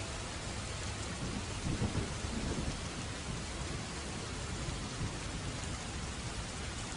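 Steady heavy rain falling, with a roll of thunder rumbling low about one and a half to three seconds in.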